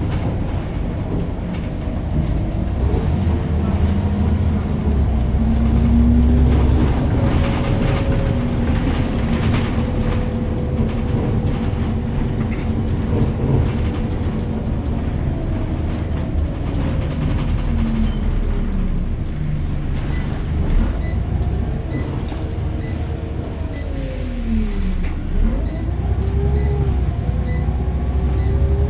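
Scania CN94UB bus's five-cylinder 9-litre diesel engine and driveline heard from inside the passenger saloon: a low rumble with a whine whose pitch climbs, holds and falls several times as the bus accelerates and slows. A faint regular ticking runs through the second half.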